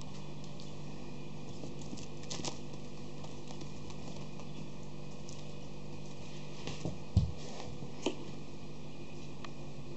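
Schipperke puppies' paws pattering and scrabbling on a wooden floor and a spread sheet, with scattered light clicks and one louder thump about seven seconds in, over a steady low hum.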